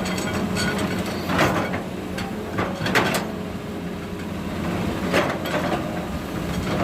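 Excavator working: its diesel engine runs steadily under several sharp clanks, a few seconds apart, from the machine's bucket and arm at work.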